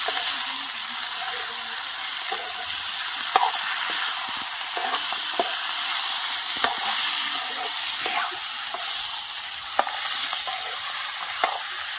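Wild hen pieces with onion, tomato and spices sizzling in a steel kadai, a metal spoon stirring and scraping through them with scattered sharp clinks against the pan.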